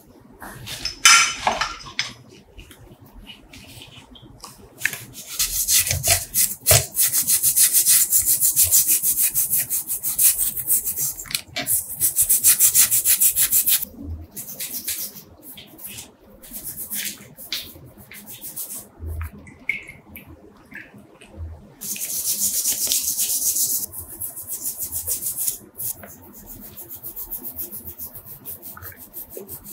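Stiff-bristled brush scrubbing a wet, slotted metal part of an antique scale held in a gloved hand, cleaning off loosened rust and grime. Fast back-and-forth strokes come in bursts with short pauses between.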